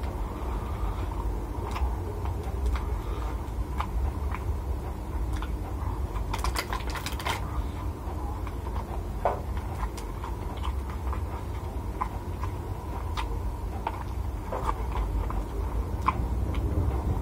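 Eating with the fingers from a clear plastic food box: scattered small clicks and mouth sounds, with a short burst of plastic crackling about halfway through. A steady low hum runs underneath.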